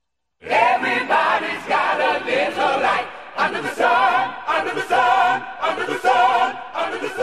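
A song starts about half a second in, a choir of voices singing in music.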